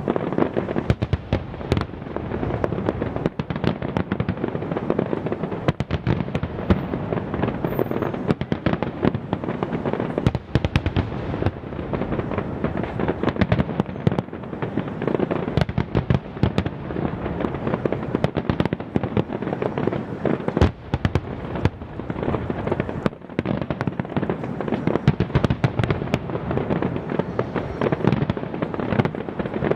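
Aerial firework shells bursting in a dense, unbroken barrage: many booms and crackles overlap with no pause.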